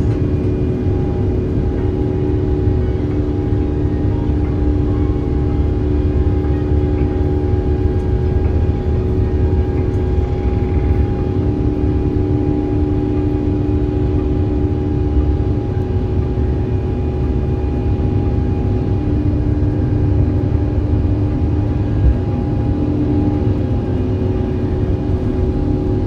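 Cabin noise inside an Airbus A350-900: a steady low rumble with the even hum of its Rolls-Royce Trent XWB engines, holding a constant pitch throughout, with one small knock about 22 seconds in.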